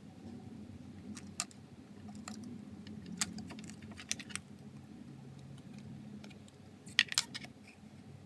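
Light scattered clicks and taps of small plastic model pieces being handled, with a quick run of several clicks about seven seconds in.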